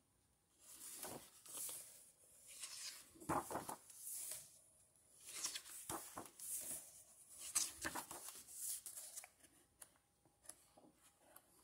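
Pages of a large hardcover comic book being turned one after another: a dozen or so short paper swishes and rustles, about one a second, with brief quiet gaps between.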